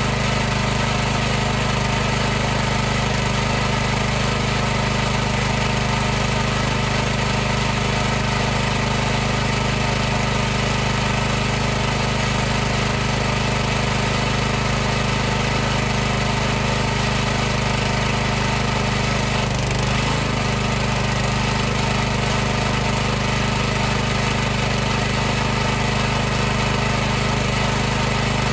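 High-pressure washer's motor and water pump running steadily, a constant mechanical hum made of several fixed tones.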